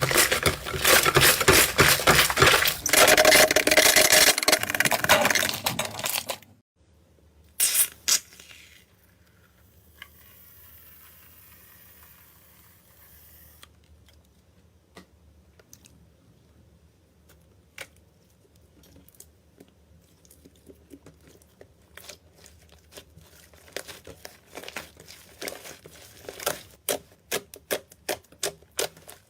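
Slime being squeezed and worked by hand: a dense run of crackling, popping clicks for about the first six seconds, then a mostly quiet stretch with scattered clicks, and from about twenty seconds in a run of sharp pops and clicks.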